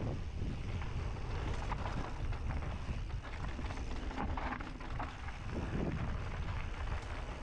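Wind buffeting a camera microphone over the rumble and rattle of mountain bike tyres on a dirt trail, with scattered small knocks and crackles.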